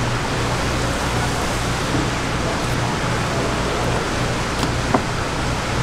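Steady background hiss with a low hum under it, and a single short tick about five seconds in.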